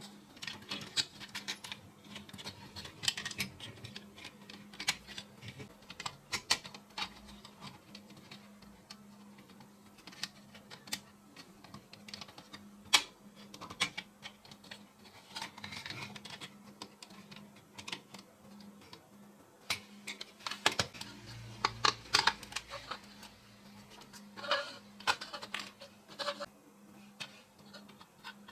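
Irregular small clicks and taps of hard parts being handled and fitted during reassembly, a few sharper knocks among them, over a faint steady hum.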